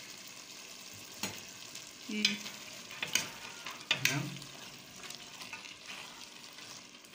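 Metal spoon stirring peas into a simmering meat and tomato stew in a stainless steel pot, over a steady sizzling hiss, with several sharp clicks of the spoon against the pot.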